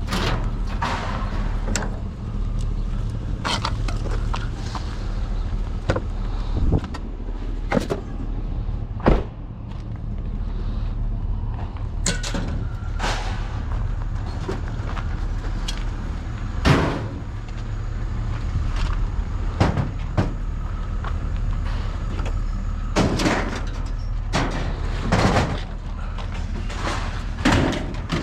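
Scrap metal being handled and dropped, giving irregular clanks and bangs, about a dozen with the loudest near the middle and end, over a steady low engine rumble.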